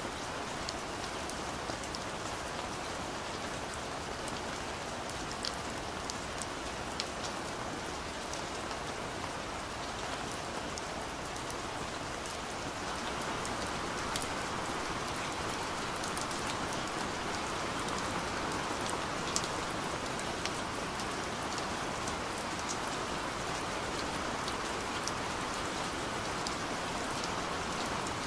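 Steady rain falling, with scattered sharper drop hits standing out; the rain grows slightly heavier about halfway through.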